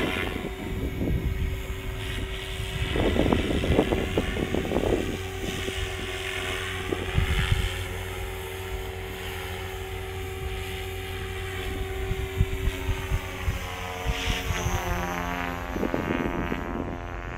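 Beam E5 electric RC helicopter flying overhead: the motor and rotor whine sweeps up and down in pitch as it manoeuvres, with a few low rumbles.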